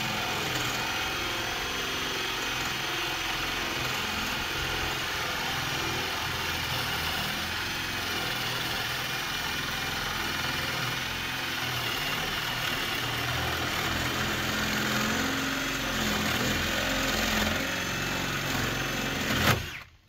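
Power drill running fast and steady while boring a 1-inch hole into the wooden door edge for a deadbolt, then stopping abruptly near the end.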